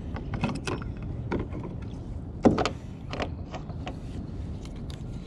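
A scatter of sharp clicks and knocks on a plastic fishing kayak, the loudest about two and a half seconds in, over a steady low rumble.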